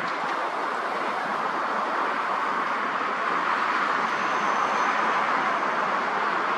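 Steady jet engine noise from a rear-engined regional jet on final approach, swelling slightly about four seconds in.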